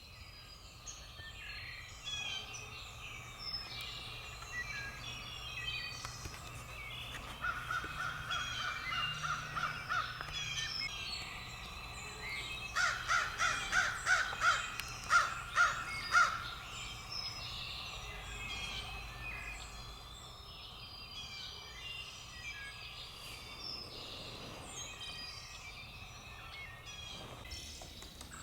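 Two rapid runs of harsh crow caws, about four a second, the second run louder, with small songbirds chirping in the background.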